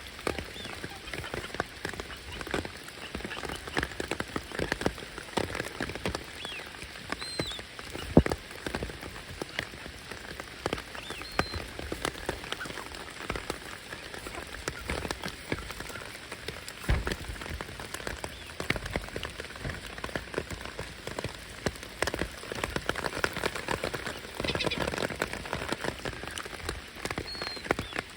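Rain falling and pattering on surfaces, a steady hiss broken by many irregular sharp drop clicks. A few faint, short, high chirps come through now and then.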